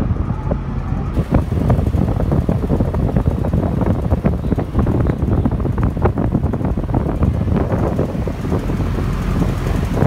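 Large industrial exhaust fan running behind a louvred metal grille: a loud, steady rush of air, with the fan's outflow buffeting the microphone.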